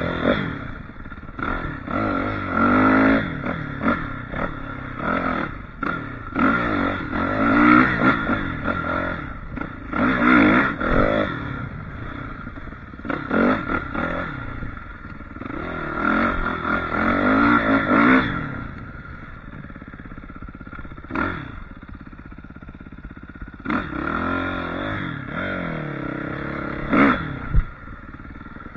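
Suzuki RM-Z450 dirt bike's single-cylinder four-stroke engine revving up and down over and over under throttle, with clattering from the bike. It settles to a lower, steadier note for a few seconds around the middle, then picks up again, and there is a sharp knock near the end.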